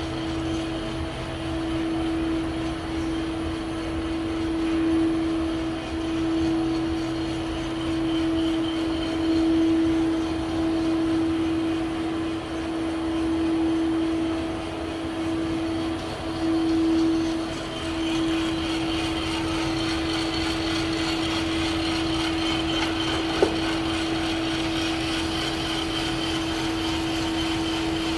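Coffed SR5 5 kg coffee roaster running: a steady mechanical hum carrying one strong held tone. A higher rushing sound joins about two-thirds of the way through, and a single sharp click comes near the end.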